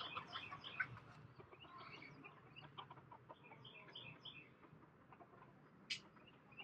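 Faint, scattered clucking and chirping from chickens, short calls repeated throughout, with one sharp short sound about six seconds in.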